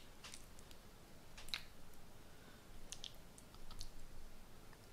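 Faint, scattered clicks and taps of a metal spoon scooping potato salad from a plastic tub and pressing it into a hollowed-out tomato on a plate.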